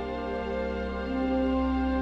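Slow, sad-sounding background music with long held notes; a new low note comes in about a second in.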